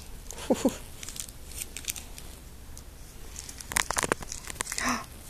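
A toddler's two short, high giggles about half a second in, then a quick run of clicks and rustling from a plastic sippy cup being handled, about four seconds in.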